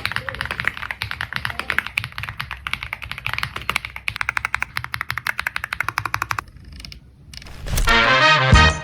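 Rapid typing on a Zifriend RX75 Pro mechanical keyboard, a fast unbroken stream of keystrokes that stops about six and a half seconds in. Background music comes in near the end.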